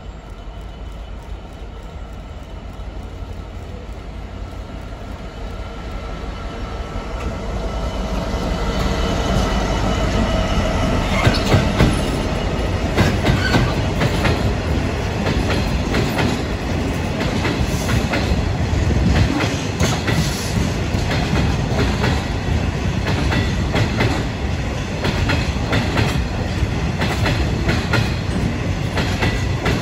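Freight train approaching and passing close by, its sound building over the first eight seconds. A long rake of wagons then rattles past, with steady clickety-clack from the wheels over rail joints.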